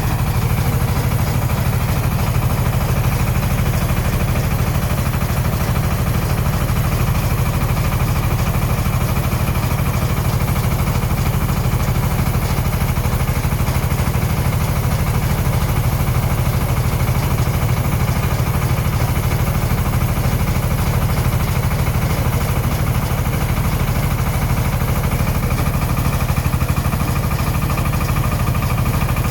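Engine of a tricycle silage feed mixer-spreader running steadily, a low, fast, even pulse that holds constant throughout.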